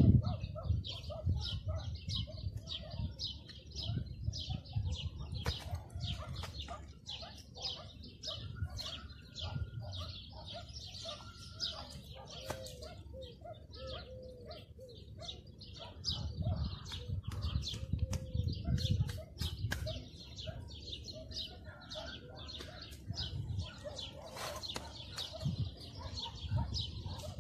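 Small birds chirping rapidly and continuously, with occasional low thuds and scraping of heavy stone blocks being set and worked into mortar on a wall.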